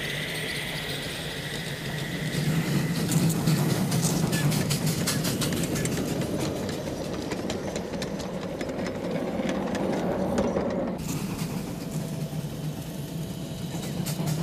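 5-inch-gauge ride-on model train running on its track: a steady low hum with a rapid, even clicking, which breaks off abruptly about eleven seconds in.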